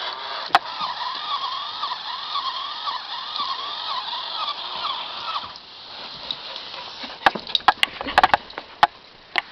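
A Mio Pup robot puppy toy giving a repeating electronic warble, the same rising-and-falling note about twice a second. It stops about five and a half seconds in, and a scatter of sharp clicks and knocks follows.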